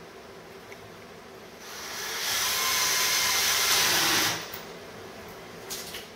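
Handheld power drill boring a hole into a white oak bullnose. It spins up about one and a half seconds in, runs loud and steady for about two seconds, then stops abruptly. A couple of light clicks follow near the end.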